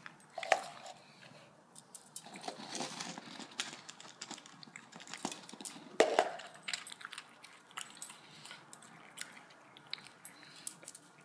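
A pug nosing at a small plastic cup of cereal on a wooden floor: scattered clicks, rattles and scrapes, with two louder knocks, one about half a second in and one about six seconds in.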